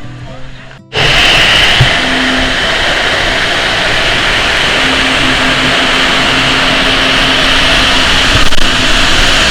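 Music stops abruptly about a second in, and a loud, steady rushing noise follows at once and continues with little change.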